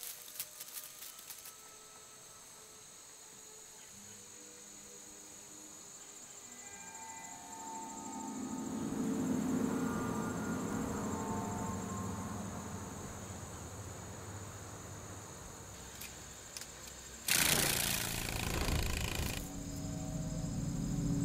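Crickets chirring in a steady high trill, a forest-floor night ambience, under soft ambient music tones that swell about eight seconds in. A loud burst of rushing noise lasts about two seconds near the end.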